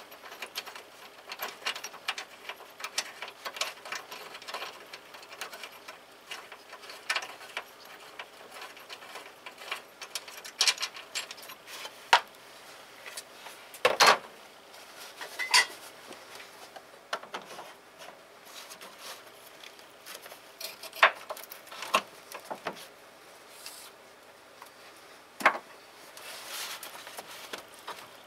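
Irregular light clicks and knocks, with a few louder knocks scattered through.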